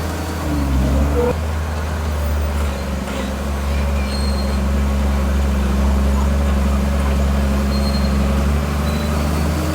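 Heavy diesel engine of earth-moving machinery running steadily under load, with a low drone. Its note shifts briefly in the first second and again near the end.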